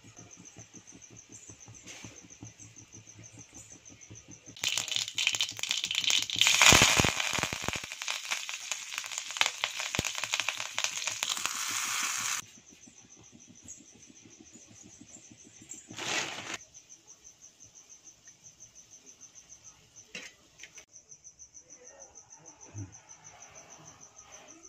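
Tempering for rava kichadi: mustard seeds and curry leaves sizzling and crackling in hot oil in a pan. The crackling starts about five seconds in and cuts off suddenly about twelve seconds in.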